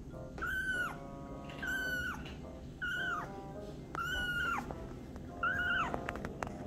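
Tiny kitten meowing five times in a row: high-pitched calls about half a second each that drop in pitch at the end. A few faint clicks follow near the end.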